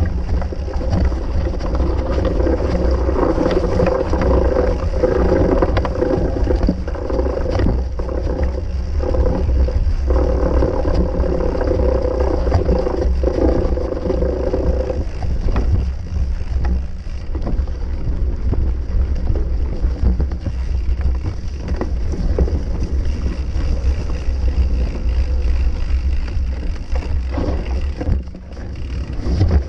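Mountain bike ridden over rough grass with a camera fixed to it: steady wind rumble on the microphone, with the bike rattling and knocking over bumps. A droning note runs through the first half and stops about halfway.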